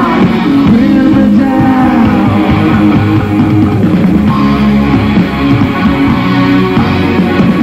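Rock band playing live, with guitar prominent.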